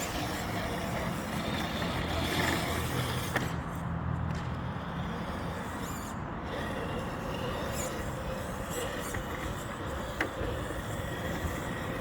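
Steady rumble of road traffic passing on the highway overhead.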